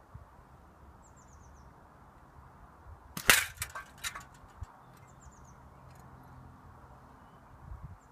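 A single air rifle shot, a sharp crack about three seconds in, followed within the next second by a few lighter clicks. A small bird gives a short falling chirp three times in the background.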